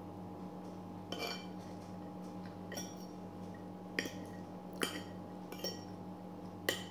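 Metal spoon and fork clinking and scraping on a plate of fried rice while eating, about six separate clinks, over a steady low hum.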